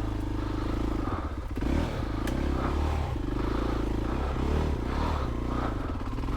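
Voge 300 Rally's single-cylinder engine running at low speed, the throttle opened and closed in short bursts so the revs rise and fall repeatedly.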